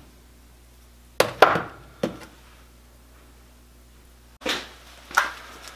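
Broken chunks of zeolite rock knocking against each other and on a countertop as they are handled and set down: two sharp knocks close together about a second in, another soon after, then two more near the end.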